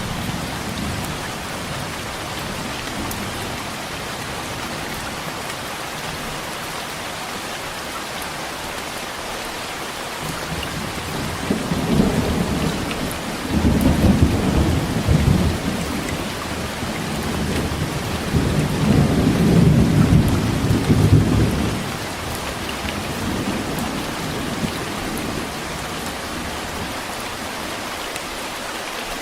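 Steady heavy rain with rolling thunder: a low rumble fading at the start, then a long roll of thunder from about eleven seconds in that swells twice, around fourteen and twenty seconds, before dying away under the rain.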